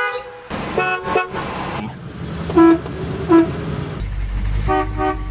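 Classic car horn sounded in a series of short toots, the two in the middle the loudest, with a low rumble underneath near the end; the horn sounds a little weak.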